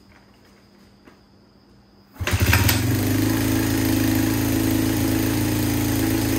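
Honda XR100R's single-cylinder four-stroke engine being kick-started: it catches about two seconds in with a brief rough burst, then settles into steady running. This is the first start after a carburetor rebuild, and the carburetor still needs adjusting.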